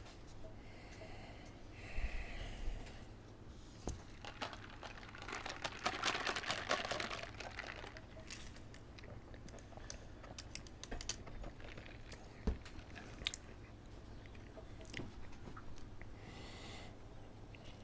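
Close-miked eating of McDonald's fast food: chewing and crunching, with crinkling of paper packaging and scattered sharp clicks, loudest in a dense crackly stretch about five to seven seconds in, and a couple of soft nasal breaths.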